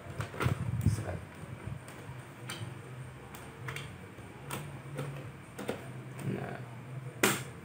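Scattered light clicks and taps of a screwdriver and small screws on laptop hardware while an SSD is fitted. The sharpest click comes near the end.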